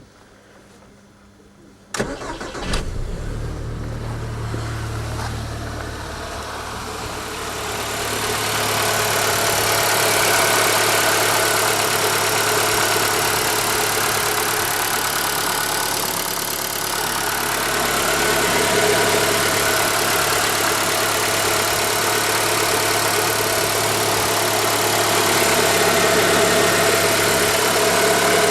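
ZAZ Forza's four-cylinder petrol engine starting about two seconds in and then idling steadily, getting louder about eight seconds in. The idle carries a ticking under the hood that the owner puts down to the hydraulic lifters or possibly the injectors.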